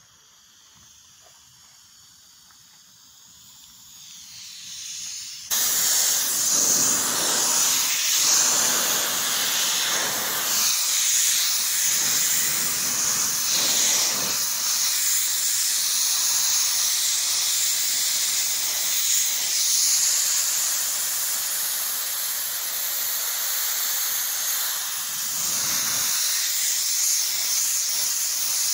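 Compressed-air blow gun hissing as it blows water off a wet-sanded primer-filler panel. It cuts in suddenly about five seconds in and runs on steadily, swelling a little now and then.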